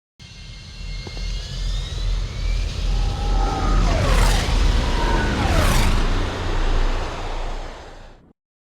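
LAAT gunship takeoff sound effect: a deep pulsing engine rumble that builds over a few seconds, with high whining tones and two loud falling swooshes in the middle, then fades and cuts off shortly before the end.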